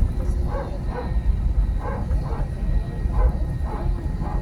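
Steady low rumble of taxiing jet airliner engines with a faint steady whine, under short, repeated voice-like sounds.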